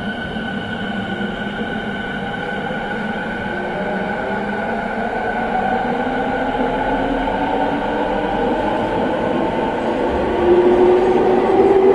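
Rinkai Line 70-000 series electric train running through a tunnel, heard from inside the car. A steady rumble of wheels on rail carries several motor whines that rise in pitch as the train gathers speed, growing louder, with a stronger whine coming in about ten and a half seconds in.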